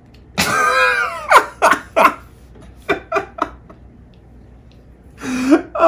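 A man laughing hard: one long high burst, then a string of short laughs that trail off.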